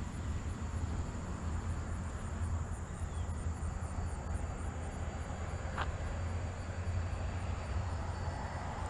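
Outdoor ambience: a steady low rumble of wind on the microphone with a thin, steady high insect-like drone, and one brief sharp sound about six seconds in.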